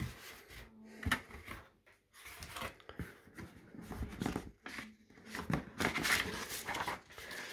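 Cardboard box flaps and paper sheets being handled: irregular rustling, scraping and light knocks, with a sharper knock about a second in and busier rustling in the second half.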